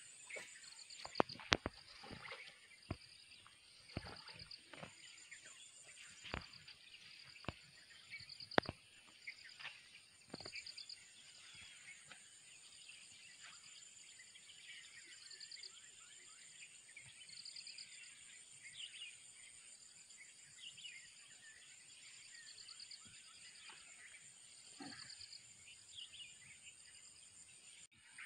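Insects chirping steadily in short repeated pulse trains, with scattered bird chirps from the middle on. A series of sharp clicks and taps, the loudest sounds, comes in the first nine seconds or so.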